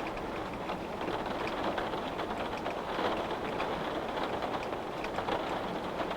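Steady rainfall pattering on a window pane, a dense even hiss with many small drop ticks through it.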